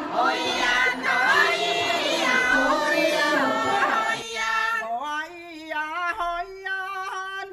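Several voices chattering and singing together, then about four seconds in a single voice sings alone, a clear, wavering melody.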